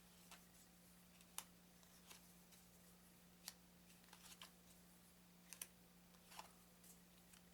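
Thin playing cards being handled and laid down one at a time: faint, irregular clicks and taps over a steady low hum.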